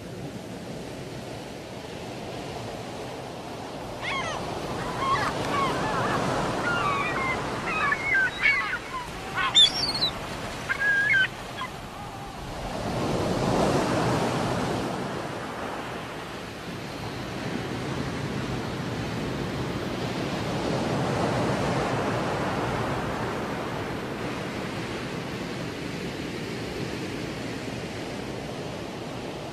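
Ocean surf washing in slow swells that rise and fade every several seconds. From about four to eleven seconds in, birds call several times over the waves.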